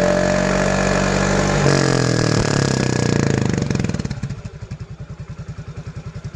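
Yamaha Fino 125 scooter's single-cylinder engine running through an aftermarket MP7 harian exhaust, held at high revs with a brief dip under two seconds in. About four seconds in it drops to a steady idle with an even pulse.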